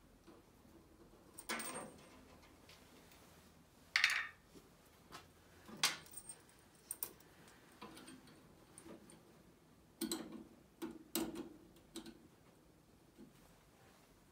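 Small metal parts clicking and tapping as a clevis pin and E-clip are handled and fitted to a throttle cable linkage: a scattered handful of light clicks, the sharpest about four and six seconds in.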